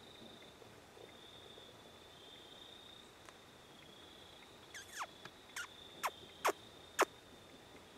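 Quiet woods with a faint steady high-pitched hum, broken about five seconds in by a quick run of five or six short, sharp, falling chirps from a small animal.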